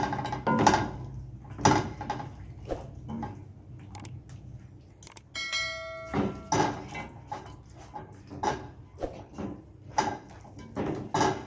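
A spoon stirring chicken pieces in curry sauce in a cooking pot, with repeated knocks and scrapes against the pot. A short metallic ringing tone sounds about five seconds in.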